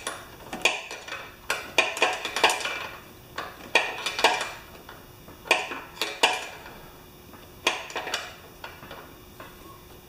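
Sharp metallic clinks and taps of a hand tool against the pressure washer's small engine, about fifteen at uneven intervals, some with a brief ring.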